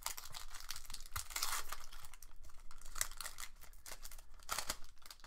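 Foil trading-card booster pack wrapper being torn open and crinkled by hand, with a few sharper crackles.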